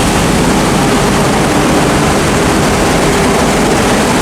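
Loud, steady drone of diesel engines running in a ferry's enclosed car deck, a continuous engine hum with no breaks.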